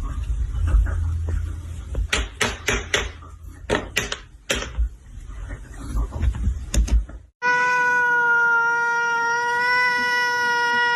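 A domestic cat giving one long, drawn-out yowling meow on a nearly steady pitch, starting about seven seconds in and held for over four seconds. Before it come a low rumble and a handful of sharp clicks.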